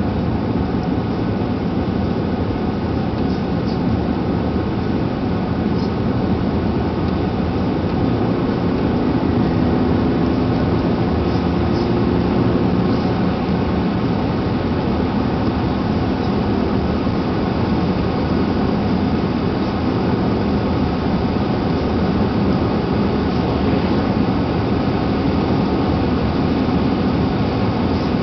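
Steady road and engine noise of a car driving at speed, heard from inside the cabin, with a low drone that hums a little more strongly about a third of the way through.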